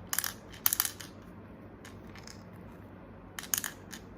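Small hard plastic gachapon pieces clattering as they are dropped in together: three short bursts of rattling clicks, two close together at the start and one near the end, with a few lone clicks between.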